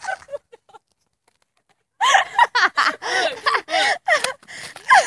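After about a second of dead silence, girls laughing hard, in short, broken peals.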